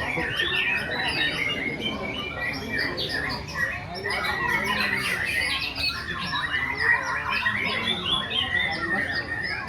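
Caged white-rumped shamas (murai batu) singing hard, fast varied chirps, whistles and squawks from several birds overlapping without a break.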